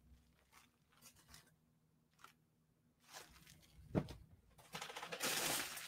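Quiet handling of folded leggings with a soft thump about four seconds in. Near the end, a clear plastic packaging bag starts crinkling.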